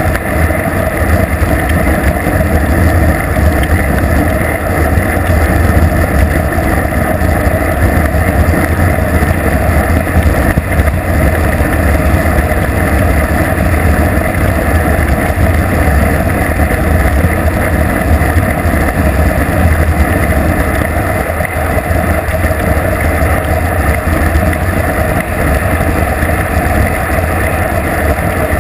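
Wind buffeting a bicycle-mounted GoPro's microphone on a fast downhill ride: a loud, steady low rumble that runs on without a break.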